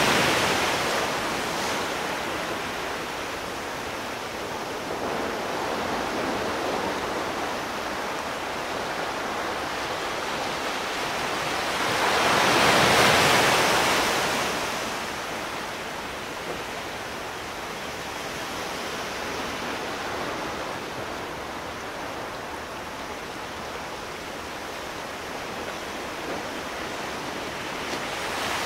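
Sea surf: waves washing on the shore in a steady rush of water, easing off after the opening seconds, with one louder wave breaking a little before halfway through before it settles back.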